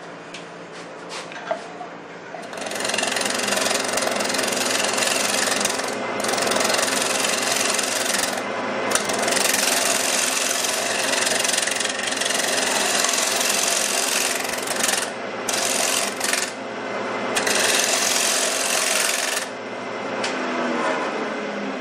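Wood lathe running while a turning tool cuts the bottom of a spinning wooden bowl: a steady, loud shaving noise that starts about two and a half seconds in, with a few brief breaks, over the lathe's steady hum.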